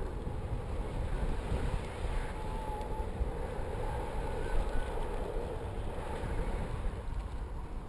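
Wind rushing and buffeting over the microphone of a GoPro camera riding in a cooler under a rising weather balloon, a steady rumbling rush heaviest in the low end.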